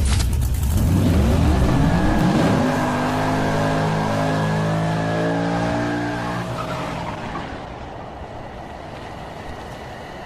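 An engine revving, its pitch climbing over the first couple of seconds, then holding a steady note and fading away.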